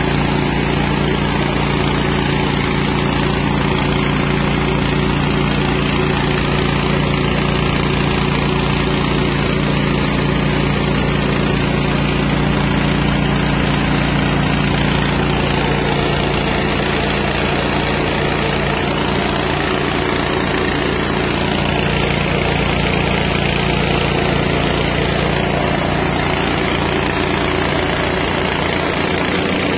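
Small rice-milling machine running steadily under its 6.5 hp engine: a constant low engine hum with an even hiss over it, no change in speed.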